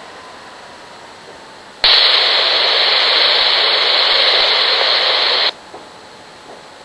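RadioShack Pro-97 police scanner opening up on a transmission with no voice: a burst of loud radio static starting about two seconds in and lasting about three and a half seconds, then cutting off to a faint hiss.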